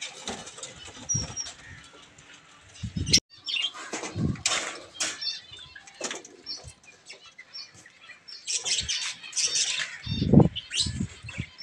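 Small cage birds fluttering and beating their wings inside a wire cage as a hand reaches in to catch them, in irregular bursts with knocks and rattles of the wire, and a few short chirps.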